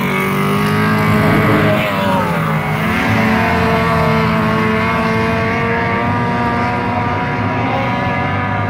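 Racing outboard motor on a small racing boat running at speed: a steady, high engine note whose pitch sags briefly about two and a half seconds in, then holds and eases off slightly as the boat draws away.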